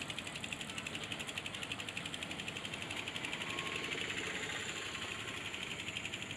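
Rapid, evenly spaced mechanical ticking, like a ratchet or small machine.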